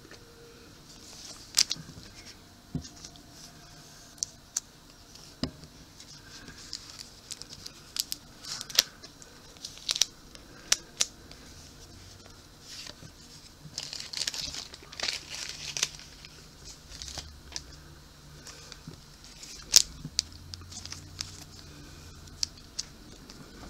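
Trading cards handled and slid into the plastic pockets of a binder page: rustling plastic with scattered sharp clicks and taps, and a longer stretch of rustling a little past the middle.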